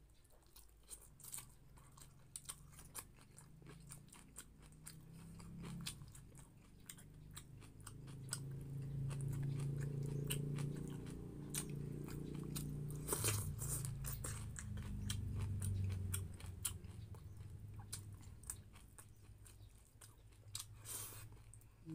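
Close-up chewing with many sharp, crisp crunches as fresh raw pechay (bok choy) stems are bitten and chewed. A low hum sits under the chewing from about eight to sixteen seconds in.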